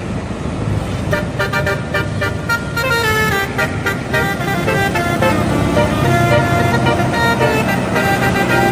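Bus telolet horn tooting a melody of quick stepped notes over the rumble of the bus engine, growing louder toward the end.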